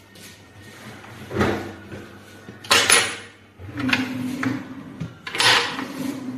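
Sliding wardrobe doors being rolled along their track several times. It comes as repeated sweeps of rolling noise, one ending in a sharp knock about three seconds in.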